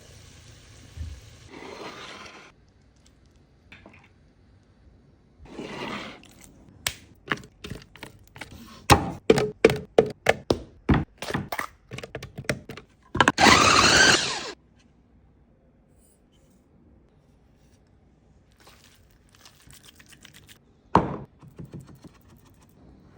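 Food-preparation sounds: brief scraping, then a run of about a dozen sharp knocks, then a loud noisy burst lasting about a second and a half. A single sharp knock comes near the end.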